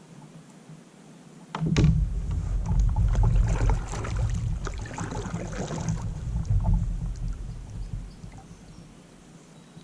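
Water sloshing and splashing against a kayak, with a heavy low rumble and crackling, beginning suddenly about one and a half seconds in and dying away near the end.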